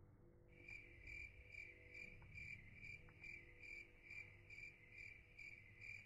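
A cricket chirping steadily and faintly, a high chirp repeated about two and a half times a second, with a couple of faint ticks in the background.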